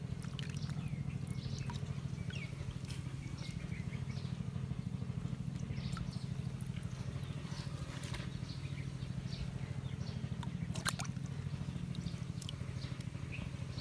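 Muddy water splashing and sloshing in a small flooded pit as a hand grabs a fish and a bowl scoops the water out. Under it runs a steady low hum with a fast pulse.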